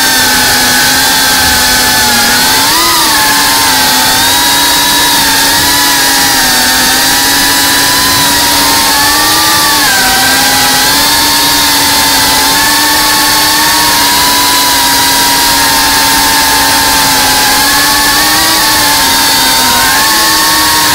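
GEPRC Cinelog35 cinewhoop's brushless motors and ducted propellers whining in flight, heard from the onboard camera, with a constant rush of air beneath. The whine's pitch rises and dips briefly a few times as the throttle changes.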